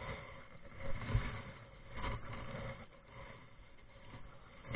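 Kayak paddles dipping and pulling through calm water, with low knocking and rumble against the kayak; louder strokes come about one and two seconds in.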